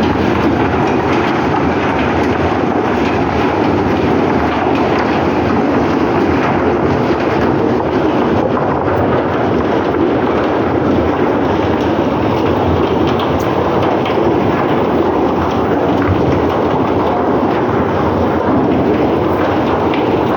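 Nickel smelting plant machinery running: a loud, steady rumbling noise with faint clatter.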